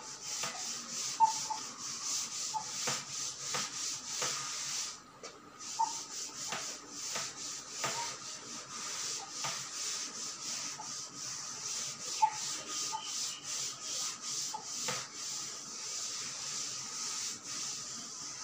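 Cloth rubbing chalk off a chalkboard in many quick back-and-forth strokes, with a short pause about five seconds in.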